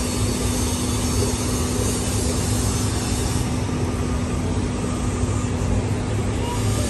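A steady machine hum over a continuous rumbling, rushing noise, the hum fading out about three seconds in.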